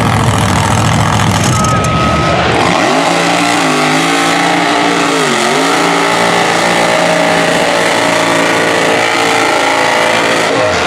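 Supercharged big-block V8 mud-truck engines at high revs: first a low, rough engine note, then, after about three seconds, a truck engine held near full throttle as it drives through deep mud, its pitch dipping briefly about five seconds in and climbing back.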